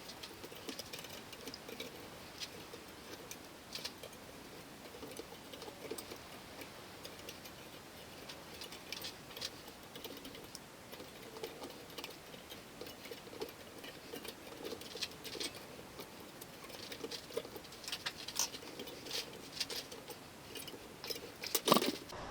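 Faint, irregular small metallic clicks and ticks of hand tools bending and folding the thin steel petals of a forged rose, with one louder clank near the end.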